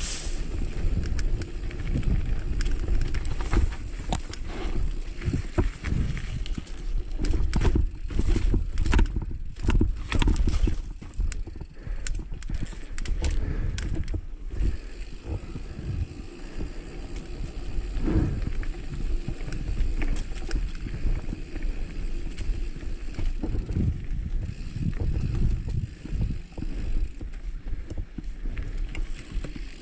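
Mountain bike ridden down a dirt singletrack: a steady low rumble of tyres rolling on dirt, with the bike rattling and knocking over rough ground, most busily a quarter to halfway through.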